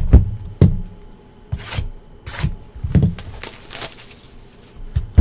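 Trading card boxes and packs being handled on a tabletop: a series of short knocks and thumps with brief rustles between them, the loudest knock near the end.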